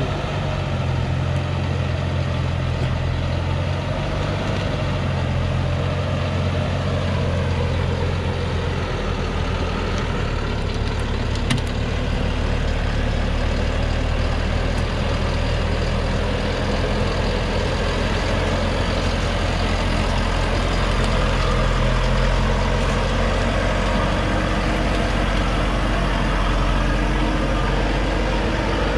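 Diesel engine of a loaded Thaco Forland log truck running steadily as the truck crawls along a rutted dirt track. It grows slightly louder as the truck draws close.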